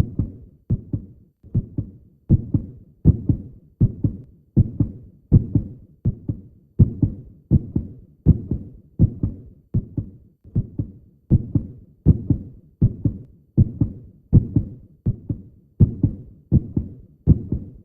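Heartbeat recording: a steady rhythm of low double thumps (lub-dub), repeating a little faster than once a second.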